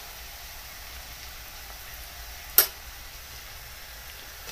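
Onion-and-spice masala sizzling steadily in hot oil in an aluminium kadhai, with one sharp knock about two and a half seconds in.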